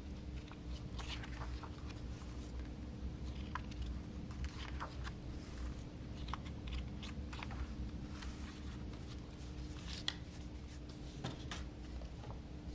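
Hands handling packaging and its contents: scattered light clicks, taps and rustles over a steady low hum.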